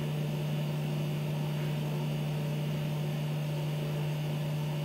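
Steady low electrical hum, one even pitch with faint hiss under it, unchanging throughout.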